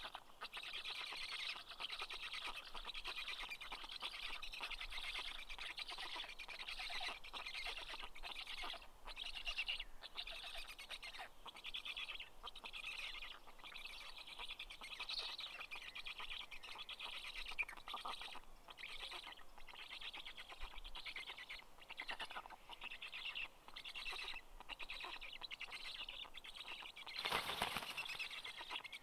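Dense, high bird chirping that goes on almost without pause. Near the end comes a short burst of wing flapping from an adult black stork on its nest.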